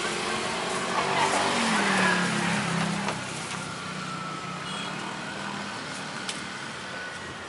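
A motor vehicle engine passing, its hum loudest about two seconds in, dropping a little in pitch and then fading. A few sharp knife clicks on a cutting board sound over it.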